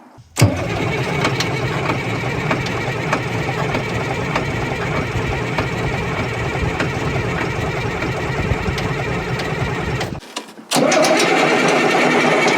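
Caterpillar 977L track loader's diesel engine being cranked on the starter, turning over steadily with an even beat but not catching. It stops about 10 seconds in, then the cranking starts again louder a second later. The engine is not firing and appears to be getting no fuel, which is pouring out of an open bleeder instead.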